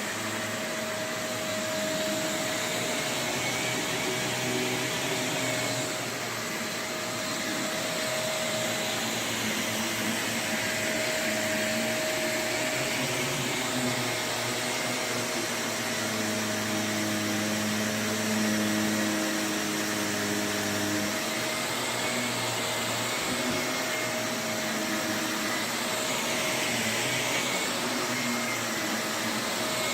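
Shark Navigator Lift-Away NV351 bagless upright vacuum running steadily, its motor giving a continuous rushing noise with a steady whine and a lower hum that wavers in pitch and strength.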